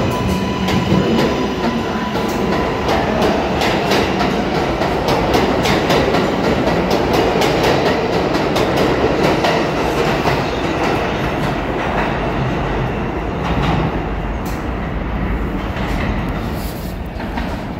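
R142A subway train accelerating out of an underground station, its wheels clicking rapidly over the rail joints under a steady rumble. The sound fades near the end as the last car goes into the tunnel.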